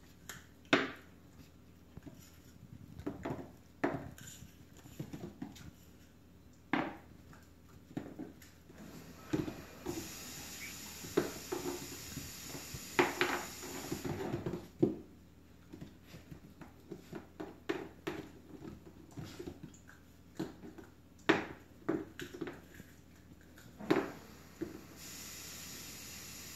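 Frozen teething ring knocking and clattering on a hardwood floor as a puppy paws, drops and mouths it: irregular sharp knocks, a few louder than the rest, scattered throughout.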